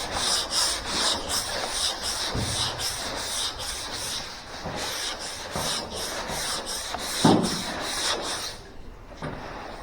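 Sandpaper on a hand sanding block rasping over body filler on a car's roof rail in quick back-and-forth strokes, with one dull knock about seven seconds in; the strokes stop about a second before the end.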